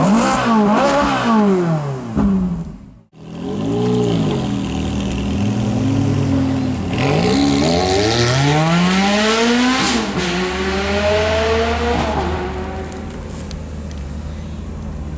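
High-revving sports car engine revving and accelerating, its pitch climbing and dropping back several times. It cuts out abruptly about three seconds in, then returns, and near the end it settles to a lower, steadier run.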